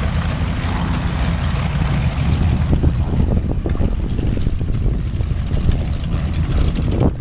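Radial piston aircraft engines running on the airfield, a steady deep rumble with a rough, crackling edge that grows in the second half.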